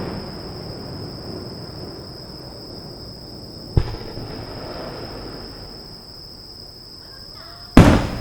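Aerial firework shells bursting. The rumbling echo of one burst fades out, a sharp bang comes about four seconds in, and a much louder bang comes near the end, each followed by a rolling echo. A steady high insect buzz runs underneath.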